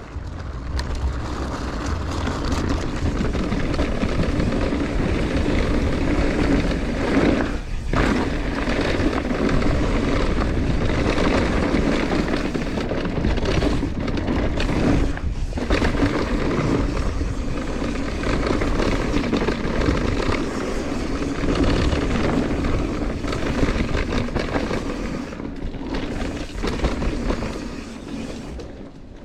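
Mountain bike descending a dirt trail: tyres rolling over dusty dirt, with steady wind rush on the helmet-camera microphone. There are brief lulls about eight and fifteen seconds in.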